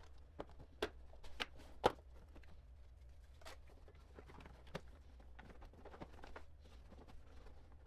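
Faint handling sounds of car interior plastic trim and wiring: several short plastic clicks and knocks in the first two seconds, then a few scattered taps and soft rustling.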